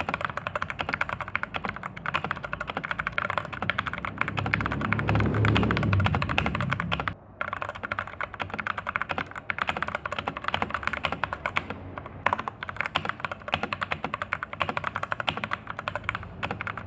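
Fast, continuous typing on a stock, unmodded Rexus Daiva RX-D68 mechanical keyboard, many keystrokes a second. A low rumble swells under the typing about four seconds in and stops abruptly around seven seconds, followed by a brief pause in the keystrokes.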